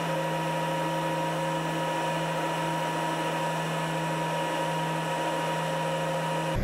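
Crane cab engine sound played back sped up fivefold: a steady, high whirring hum with several fixed tones and no bass.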